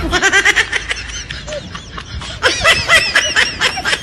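High-pitched laughter: a quick run of short giggles that eases off about a second and a half in, then picks up again.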